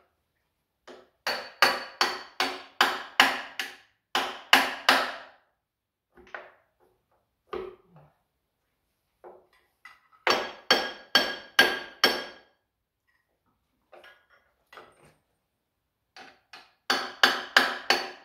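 Hammer blows on metal in four quick bursts of several strikes each, about two or three a second, each blow ringing.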